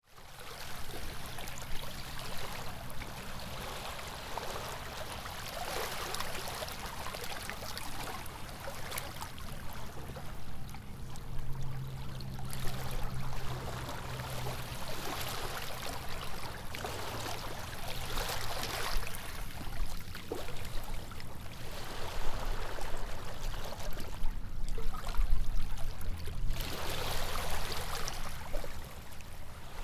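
Running water, a continuous rushing that swells louder every few seconds, with a low steady hum beneath.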